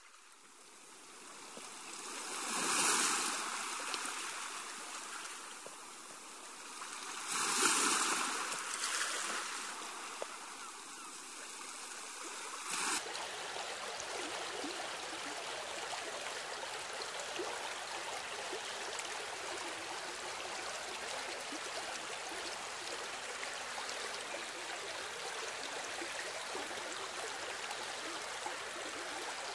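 Ambient water sound: rushing water swells up twice like washing waves, then about thirteen seconds in it changes abruptly to a steady, even flow of running water.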